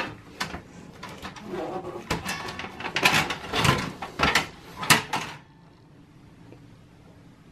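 A desktop power supply unit being slid and lifted out of a steel computer case: metal scraping with a run of sharp knocks and clacks, loudest about three and five seconds in. The handling stops about five and a half seconds in.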